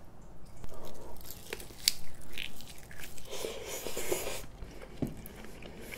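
A person chewing a mouthful of spicy sauced fried chicken close to the microphone: irregular wet chewing with a few sharp clicks.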